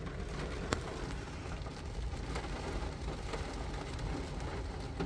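Heavy rain pouring down, heard from inside a car: a steady hiss of rain with scattered sharp drop taps on the body and glass.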